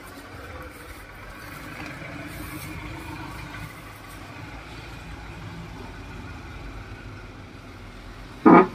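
Low, steady rumble of a vehicle engine running at a distance, with a faint pitched hum that swells and fades in the middle. A short, loud sound breaks in near the end.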